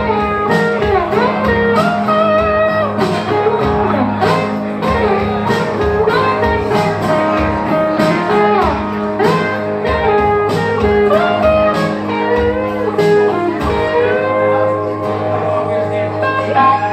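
Two guitars playing a live blues instrumental passage: a lead guitar bending notes over strummed rhythm chords, with a steady low note underneath, swelling to a loud chord at the very end.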